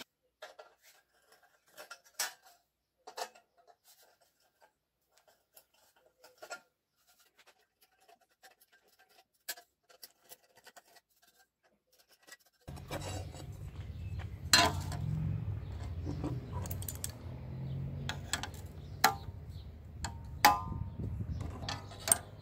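Faint metallic scrapes and clinks as a small stainless steel bracket is handled and worked with a hand tool. About halfway through a steady low rumble comes in, with several sharp metal clicks and clanks over it, one of them as locking pliers snap shut on stainless plate.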